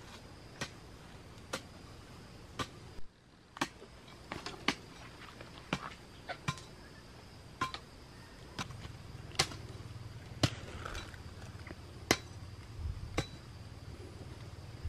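Sharp single knocks, one at a time at an uneven pace of about one a second, over a faint steady high tone.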